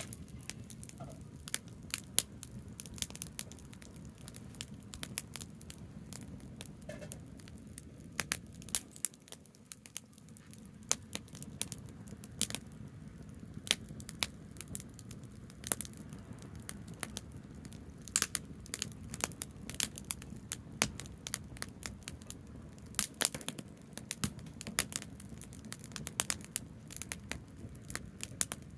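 Branches burning in a bonfire and crackling: irregular sharp pops and snaps over a steady low rumble.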